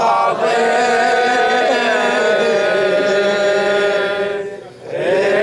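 A man chanting an Arabic Shia Ashura lament into a microphone, holding one long drawn-out note with slow bends in pitch. Near the end he breaks off briefly, then takes up the line again.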